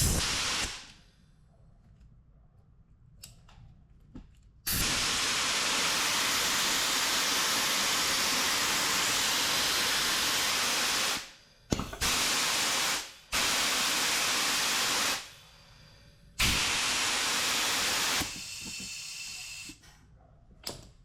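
Pneumatic can crusher run on compressed air: a sharp knock at the start as the ram comes down hard, then loud hissing of escaping air in several bursts, the longest about six seconds, with the ram failing to return up.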